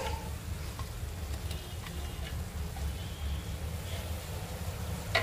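Mutton frying faintly in a pan over a steady low hum, with a few light ticks as the plastic chopper bowl is tipped and tapped over the pan.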